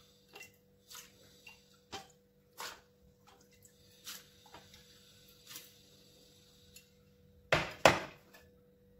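Light, scattered clicks and taps of a glass bowl and a plastic blender jar being handled while milk is poured into the jar, then two louder knocks close together about seven and a half seconds in.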